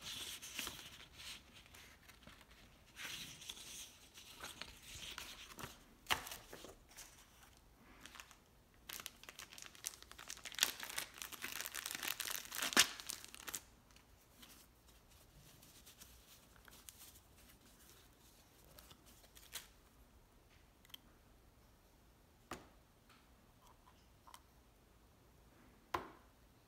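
Sheets of paper and tissue paper rustling and crinkling as they are shuffled and laid out, dense for roughly the first half. After that it goes quieter, with a few separate sharp clicks as round fridge magnets are set down.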